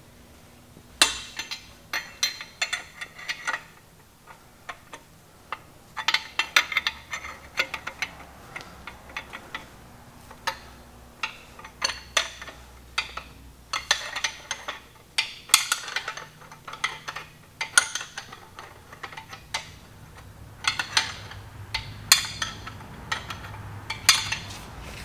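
Steel parts of a cam bearing installation tool clinking and clanking as the tool is loosened and taken apart from an engine block, in irregular clusters of short, sharp metallic clinks with pauses between.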